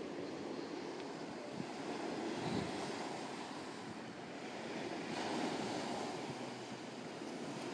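Sea waves washing onto the shore, swelling twice, with wind buffeting the microphone.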